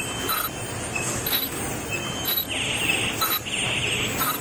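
Automatic three-side-seal bag-making machine running, its sealing and cutting stroke knocking about once a second in a steady cycle. From about halfway through, stretches of hiss come in over the cycle.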